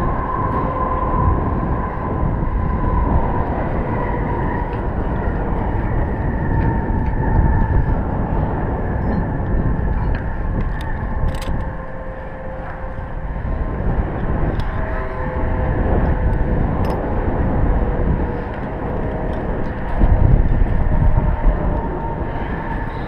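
Wind rumbling and buffeting on a camera microphone high up on a steel lattice tower, with a faint steady whistle over it. A few sharp metallic clinks come about halfway through and again later.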